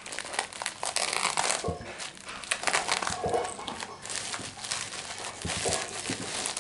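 White plastic courier mailer bag crinkling and crackling as it is handled and pulled open by hand, with many small irregular crackles.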